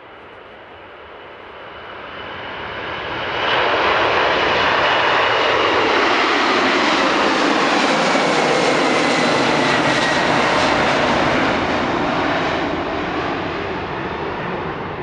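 Boeing 747-400 freighter's four jet engines at takeoff power as the aircraft goes past. The engine noise builds over the first few seconds, holds loud, then fades, with a high whine that falls in pitch as it passes.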